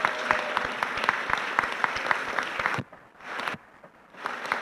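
Audience applause: a room full of people clapping, with many separate claps audible. The clapping cuts off abruptly about three seconds in, then starts up again near the end.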